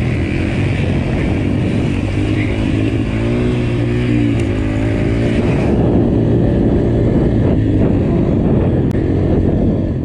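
Dirt bike engine running hard under load, its pitch rising and falling a few times as the throttle is worked over rough ground.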